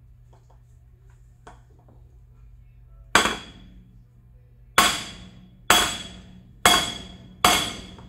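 Hammer blows on a wooden block laid over an electric unicycle's aluminium motor side plate, driving a bearing into its seat: five strikes in the second half, each with a brief metallic ring.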